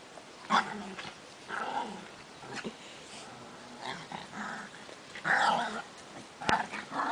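Dog barking in short separate bursts, roughly one a second.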